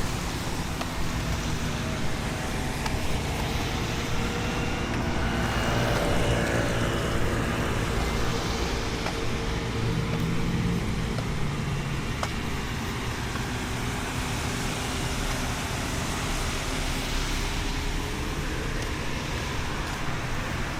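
Steady road traffic noise, with a vehicle passing or pulling away around five to seven seconds in.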